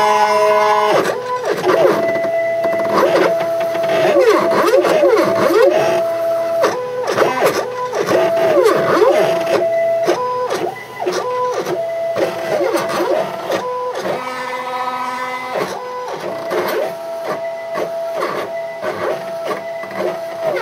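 Home-built CNC router's stepper motors driving the X and Y axes as the machine traces letters with a pen. They make a whining tone that holds steady, then swoops down and back up again and again as the head slows, turns and speeds up.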